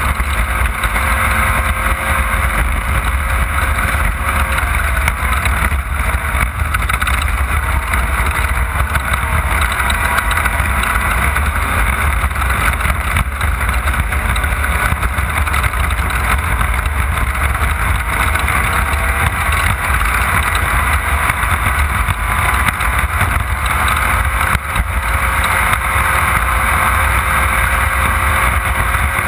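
Off-road race car's engine running hard at speed, holding a fairly steady pitch with small rises and dips, over a constant heavy rumble from the chassis and terrain, heard from on board.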